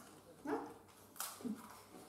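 Short wordless hummed 'mm' sounds from a person tasting a snack, twice, with a sharp crisp bite into the snack in between.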